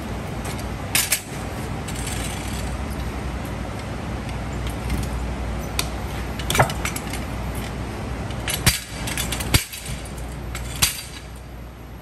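About five sharp metal clanks and clinks from a steel wheel-lifter bar being worked under a truck tire, over a steady low shop hum that drops near the end.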